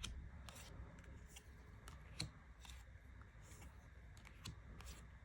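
Tarot cards being turned over and handled one by one: faint soft clicks and slides of card stock, several light taps with a sharper one about two seconds in.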